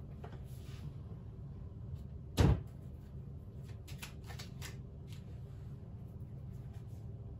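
One sharp knock, like a cabinet door or lid shutting, about two and a half seconds in. A few faint clicks and taps of things being handled follow, over a low steady room hum.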